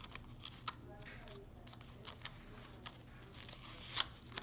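Soft rustling and a few sharp clicks of a black fabric wrist strap being fitted and fastened around a wrist, the loudest click about four seconds in.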